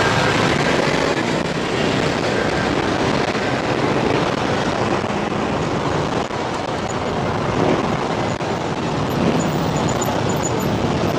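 Steady rush of wind and road noise from riding a motorcycle through traffic, with no distinct engine note or sudden sounds standing out.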